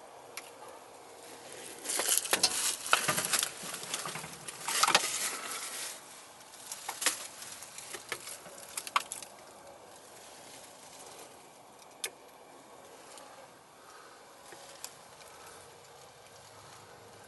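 Footsteps crunching and rustling through dry leaf litter in two bursts, followed by a few scattered sharp clicks and knocks.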